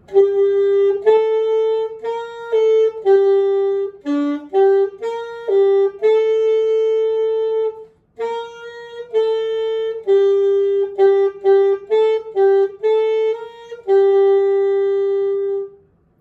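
A single wind instrument playing a slow, simple beginner-band exercise melody at one even mezzo forte volume, in two phrases with a short breath break about halfway through.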